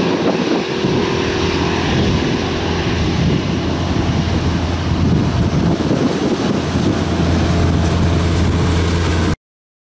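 Airbus A319-111's twin CFM56-5B turbofans at takeoff thrust as the jet lifts off and climbs away: a steady, loud jet rumble with a low hum under it. It cuts off suddenly near the end.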